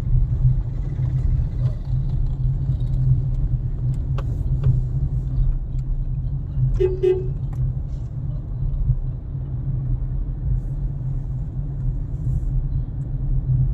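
Steady low rumble of a car's engine and tyres heard from inside the cabin while driving slowly, with a short pitched sound about seven seconds in.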